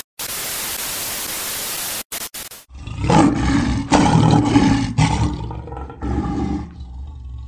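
Glitch-style static hiss that stutters and cuts out, then a big-cat roar sound effect from about three seconds in, lasting about four seconds and fading away.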